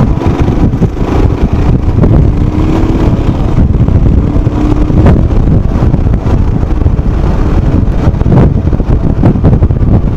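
Royal Enfield Himalayan motorcycle being ridden, its engine running steadily under heavy wind rumble on the microphone.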